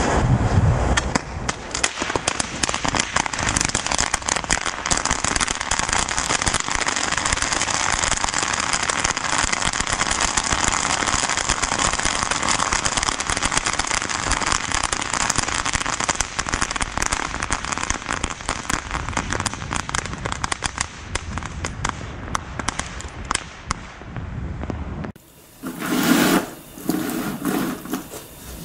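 A homemade chain of small youth-firework crackling balls going off one after another: a dense, continuous crackle of sharp pops that thins out and stops after about 25 seconds. Near the end come two short, duller noises.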